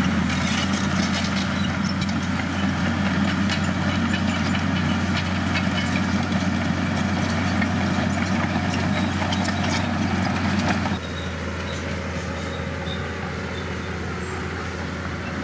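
Bulldozer's diesel engine running steadily, with a dense clatter of clicks and knocks over it. About eleven seconds in, the sound drops abruptly to a quieter, steadier engine drone without the clatter.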